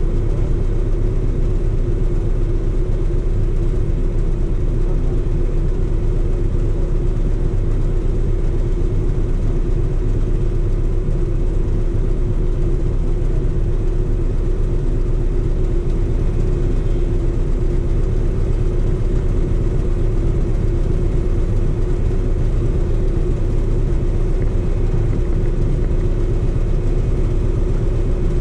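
Harley-Davidson motorcycle engine idling with a steady low rumble.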